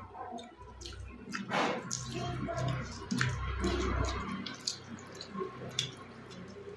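Close-up wet eating sounds of rice and dal: soft squelching and scattered clicks. A low rumble runs from about half a second in to about four seconds in.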